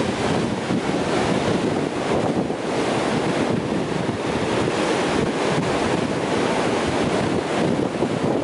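Atlantic surf breaking and washing up the beach, a steady rushing noise, with wind buffeting the microphone.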